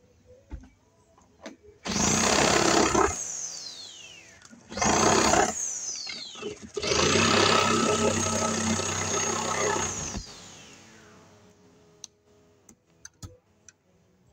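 An electric power tool is run in three trigger bursts, the last lasting about three seconds. Each time it is released, its motor whines down in pitch. This is the cutting of the hole in the wall for the porch light's mounting box. A few light knocks follow near the end.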